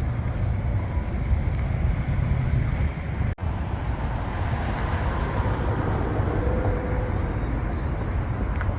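Street traffic noise with a car passing, swelling over the second half; the sound drops out briefly about a third of the way in.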